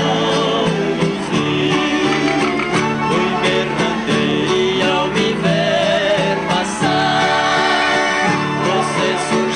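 Brazilian rural country music played live on two acoustic guitars and an accordion, the guitars strummed and plucked over held accordion notes.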